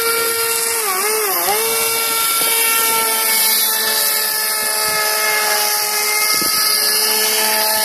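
Homemade radio-controlled airboat's motor and air propeller giving a steady high whine, its pitch dipping twice about a second in as the throttle is eased, then holding steady.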